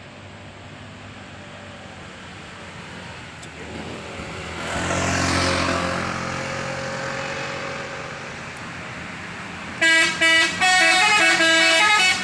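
A bus goes past about five seconds in, its engine and tyre rush swelling and fading. About two seconds before the end, a bus's Basuri telolet multi-tone horn starts playing loudly, notes changing in steps with short breaks between them.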